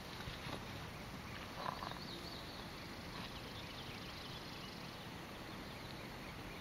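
Quiet lakeside outdoor ambience: a steady hiss with a few soft knocks in the first two seconds and faint high chirps in the middle.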